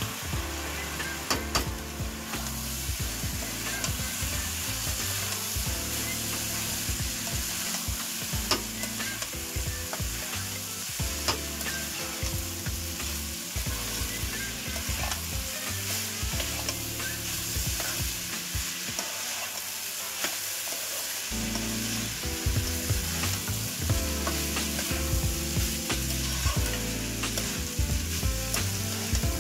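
Rice and vegetables being stir-fried in a non-stick wok: oil sizzling steadily while a wooden spatula tosses and scrapes the rice, with frequent light knocks of the spatula against the pan.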